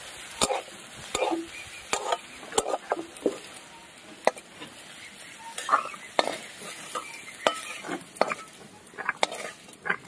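Diced potatoes frying in oil in a metal kadai, sizzling, while a metal spatula stirs them with irregular scrapes and knocks against the pan. Later they are tipped and scraped out onto a steel plate.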